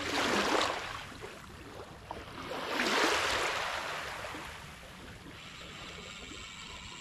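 Small waves washing in over shallow sand around a wading angler's feet. The hiss swells twice, once right at the start and again, longer, about three seconds in, then settles to a steady lower wash.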